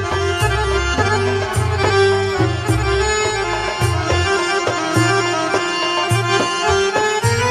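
Live Middle Eastern instrumental music from an electronic keyboard: a held melody line over bass and a steady drum rhythm.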